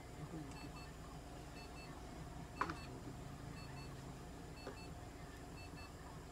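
A faint electronic double beep repeats about once a second from clinic equipment. A short, sharp sound comes about two and a half seconds in, over a low steady hum.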